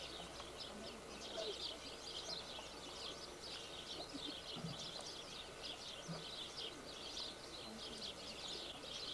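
Many small birds chirping, a dense chatter of short, quick high notes that goes on without a break.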